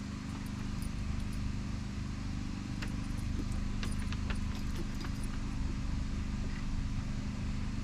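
A steady low motor or engine hum, with a few light clicks and knocks over it, most of them in the middle.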